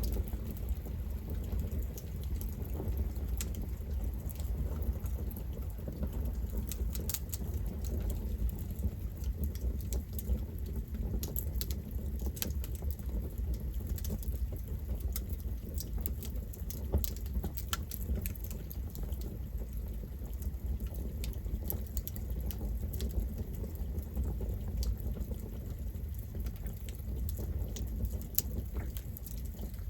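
Campfire burning: a steady low rush of flame with frequent sharp crackles and pops from the burning wood, scattered irregularly throughout.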